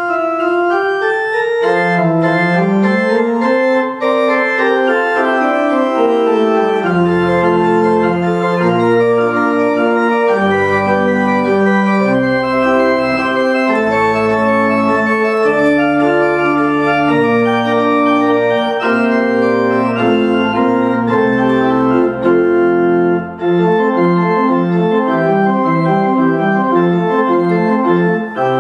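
Church pipe organ played solo, with sustained chords on the manuals. Deep pedal bass notes come in about seven seconds in, and near the end the music turns to quicker, shorter repeated notes.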